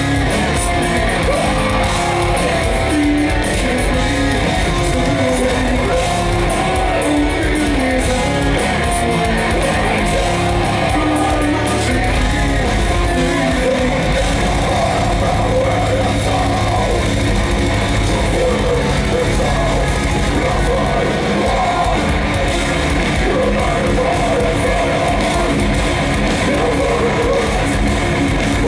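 Loud live heavy metal band playing: distorted electric guitars, bass and drums, with sung vocals.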